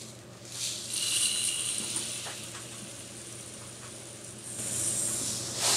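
Loose model-railway coal granules pouring down through a coaling-tower hopper and spilling onto the track, a soft hissing rattle. It swells about half a second in, thins out, and swells again near the end.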